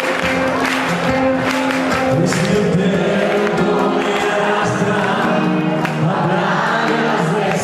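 A live band plays with many voices singing together, recorded from the audience. Sharp drum strikes stand out in the first couple of seconds, then sustained sung and played notes carry on.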